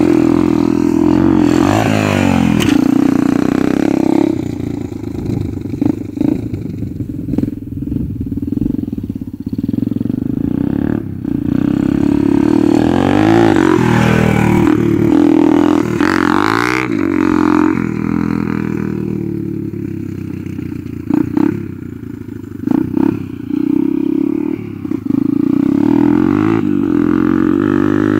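Off-road dirt bike engine revving up and dropping back again and again as it is ridden on a dirt track. It is loudest as the bike passes close by a little past halfway.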